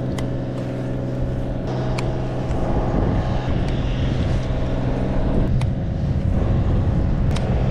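A steady low motor hum, with a few sharp clicks and knocks over it.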